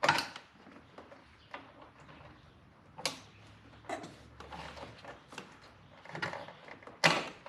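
Scattered sharp clicks and knocks of hands working the wiring harness and plastic and metal clips inside a car door. The loudest knocks come right at the start and about seven seconds in.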